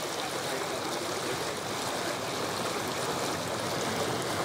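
Steady rush of water along the hull of a moving tour riverboat, an even hiss with no breaks.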